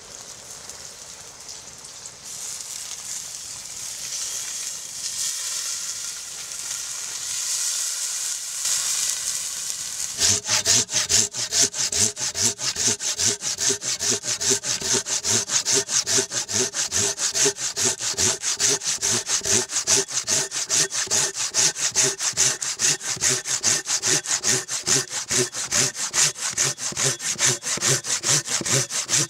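Water poured from a kettle into a pot over a campfire, a soft splashing pour. About a third of the way in, a hand saw starts cutting through a conifer log with quick, even back-and-forth strokes, much louder than the pour.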